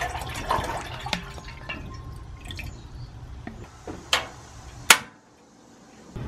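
Water pours from a plastic bottle into a stainless steel saucepan, splashing for about three seconds. Then come two sharp clicks under a second apart, as the dial of the Camp Chef single-burner butane stove is turned to work its self-igniter. Near the end the butane burner starts a steady hiss.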